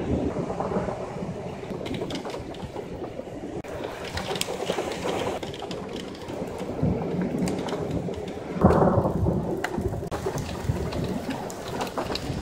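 Thunderstorm: thunder rumbling through steady rain noise, with a sudden louder burst of thunder about eight and a half seconds in.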